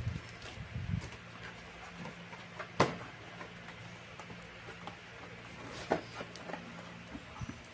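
Hands opening a small cardboard box: scattered rustles and light clicks, with one sharp click about three seconds in and another near six seconds, over a faint steady low hum.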